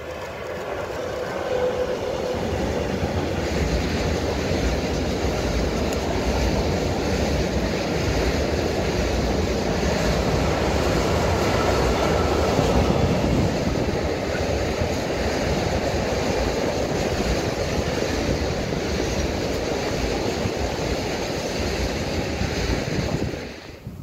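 Freight train of tank wagons hauled by an electric locomotive rolling past close by: a steady loud rumble and clatter of wheels on rails that builds over the first couple of seconds and cuts off abruptly near the end.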